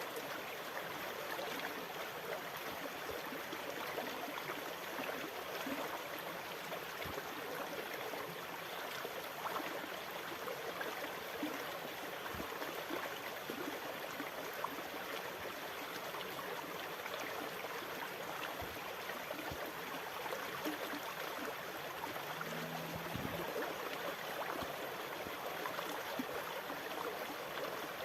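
Sea water washing and trickling steadily, an even rush without distinct breaking-wave surges. A few faint low knocks, and a brief low hum a little after the middle.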